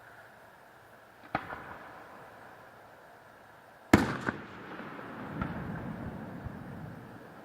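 Fireworks shells bursting: a sharp bang about a second in, then a louder bang about four seconds in, followed at once by a second crack and a few seconds of trailing rumble.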